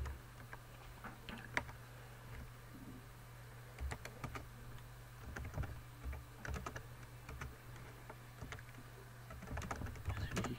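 Computer keyboard typing: irregular, quick keystroke clicks, in short runs with pauses, over a steady low electrical hum.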